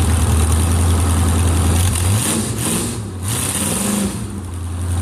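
Jet boat engine running with a steady low drone; about two seconds in its pitch wavers up and down for a couple of seconds, with a rush of hiss, then settles back to a steady drone near the end.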